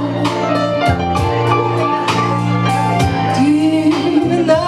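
Slow blues music with a steady bass line under melodic lines, no words sung.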